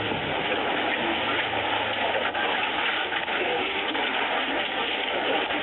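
Steady hubbub of a large crowd talking at once, with no single voice standing out.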